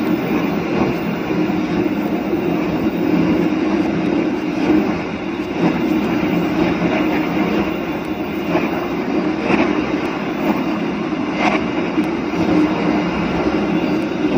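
Train running along the track: a steady rumble of wheels on rails with an occasional clack, some coming in pairs about a second apart.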